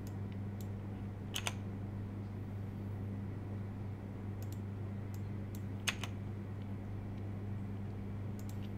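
A handful of short, scattered clicks from a computer mouse and keyboard keys over a steady low hum.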